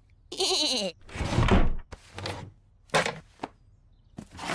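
A short wavering grunt from a cartoon character, then a heavy thud about a second in, a softer knock, and two sharp clicks. A swelling noise follows near the end.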